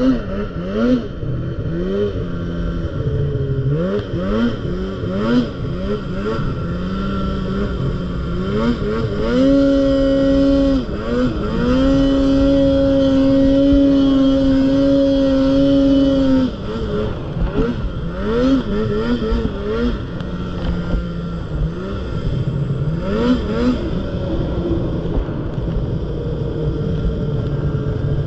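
Snowmobile engine under the rider, revved up and down again and again as the throttle is worked in deep snow, then held at a steady high rev for several seconds around the middle before the quick blips resume.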